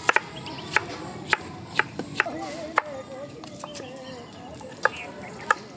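A series of sharp, irregular knocks, about nine over the few seconds, with a faint wavering tone between about two and four seconds in.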